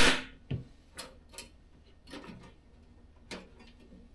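Diesel heater parts being handled: a sharp knock at the start, then a scattering of lighter irregular clicks and taps.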